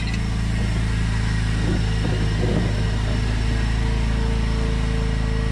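An engine running steadily, a constant low hum that does not change in pitch or level.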